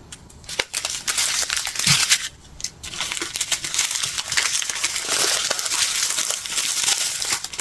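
Small plastic bags of square resin diamond-painting drills being handled: continuous crinkling of the plastic with many small clicks of the drills shifting inside, with a short lull about two and a half seconds in.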